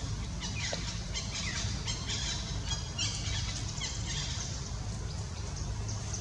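Outdoor ambience: birds chirping in short high calls, with a few brief falling squeaks, over a steady low rumble.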